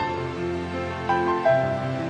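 Background music: a slow, melodic instrumental of held notes that change pitch about every half second.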